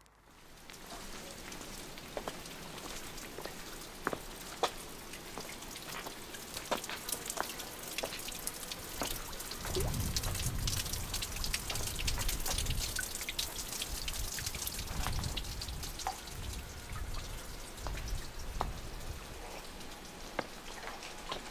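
Water dripping and trickling off a mossy rock face into a small pool: many separate drops over a steady hiss of running water, with a low rumble for a few seconds near the middle.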